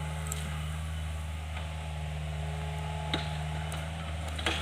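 Hitachi mini excavator's diesel engine running steadily under load as it digs, with three sharp knocks as the bucket works the ground.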